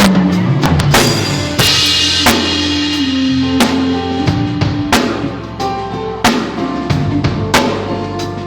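A band playing live at a sound check: a drum kit beating out a groove with kick and snare hits and a cymbal wash about two seconds in, over held low notes and sustained chords.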